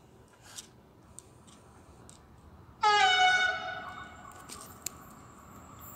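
Horn of an approaching locomotive: one loud blast of about a second, dipping slightly in pitch as it starts, then tailing off.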